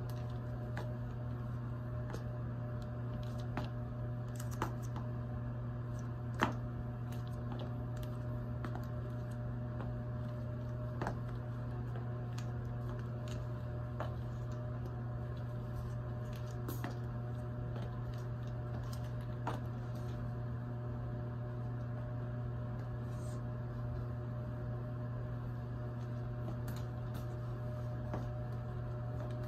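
Chunky platform high heels clicking on a tile floor in slow, irregular steps, a few strikes louder than the rest, over a steady low hum.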